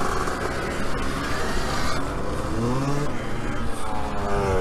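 Dirt bike riding on the trail, its motor pitch rising and falling with the throttle over a steady low rumble.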